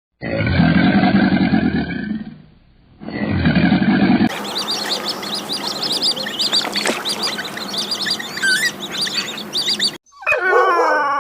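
A run of different animal calls cut one after another: two short low calls, then a chorus of many rapid high calls for several seconds, and near the end a dog starting to howl.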